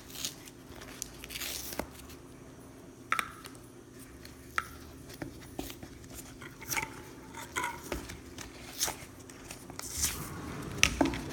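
Styrofoam being pulled and broken off an old factory speaker frame by hand: irregular small crunches, snaps and clicks.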